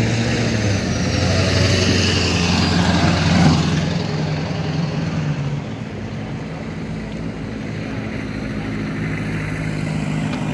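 Motorcycle engine passing close by, loudest about three and a half seconds in and then fading, with a vehicle engine running steadily and more quietly after it.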